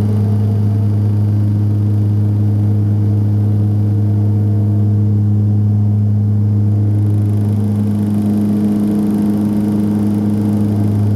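Twin Garrett TPE331 turboprop engines and propellers of a BAe Jetstream 31 in the climb after takeoff, heard from inside the cabin: a loud, steady drone with a deep low hum and its overtones, unchanging throughout.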